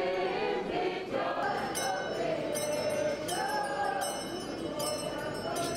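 A crowd of men and women singing a Ukrainian Christmas carol together in a large, echoing hall. From about two seconds in, a metallic jingling comes in again and again over the singing.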